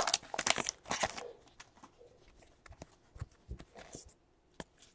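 Foil wrapper of a trading card pack crinkling as it is pulled open, for about the first second. Then come faint scattered clicks and slides as the cards are handled.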